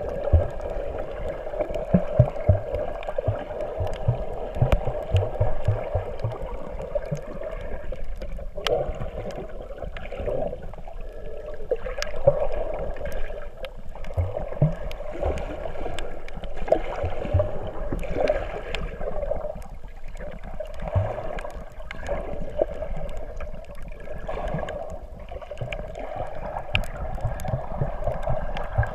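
Water gurgling and sloshing, muffled as heard underwater, with scattered clicks and low knocks.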